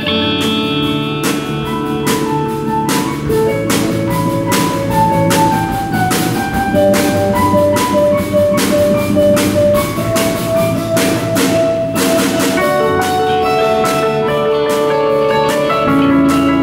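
Live band playing an instrumental passage of a rock song: a drum kit beats steadily under held melody notes and guitar chords.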